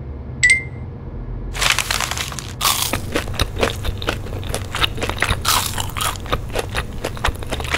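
A short high chirp about half a second in, then a paper bag crinkling, followed by crunchy bites and chewing of a fried churro: many short, crisp crunches.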